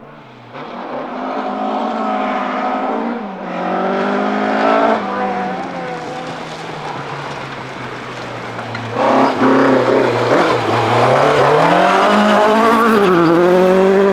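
Ford Escort Mk2 rally car engine revving hard on a stage, its pitch climbing and dropping back with each gear change. It gets louder about two-thirds of the way through as the car comes close.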